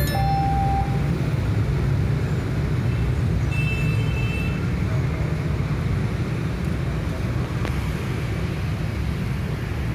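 Low, steady rumble of a train running away down the track, slowly fading as it recedes. A short electronic chime sounds in the first second, and a brief high tone comes about four seconds in.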